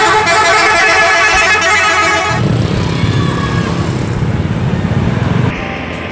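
A bus's multi-tone musical 'telolet' horn plays a quick stepping tune for the first two seconds or so. It gives way to a low engine rumble from the bus and motorcycle traffic, which drops away about five and a half seconds in.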